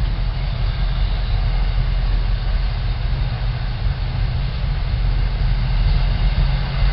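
MBTA commuter rail train, diesel-hauled, running through the station with a steady low rumble and a faint high whine, growing a little louder near the end.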